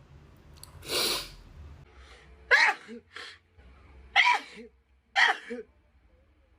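A young woman sneezing three times in quick succession, each a sharp loud burst with a short voiced tail falling in pitch, after a breathy rush of air about a second in.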